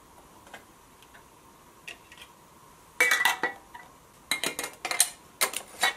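Glass quart canning jars and their metal lids and screw bands clinking as they are handled. A few faint ticks come first, then from about halfway four quick clusters of loud, sharp clinks, some with a short metallic ring.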